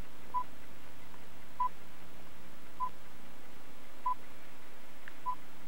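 Stream current meter's signal as heard in the operator's earphones: five short, high beeps at an even pace of about one every 1.2 seconds, each marking turns of the revolving meter wheel, their rate giving the stream velocity.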